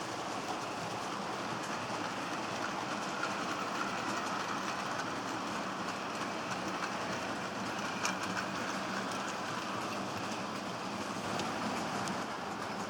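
Model freight train running along the track: a steady rattle of wheels on rails, with small clicks at the rail joints and one sharper click about eight seconds in.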